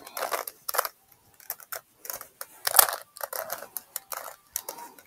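Rubik's Cube being turned quickly by hand: the plastic layers click and rattle in irregular bursts.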